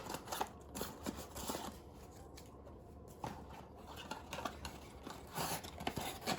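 Small cardboard light-bulb box being handled and opened: scattered rustles, scrapes and light clicks of the packaging.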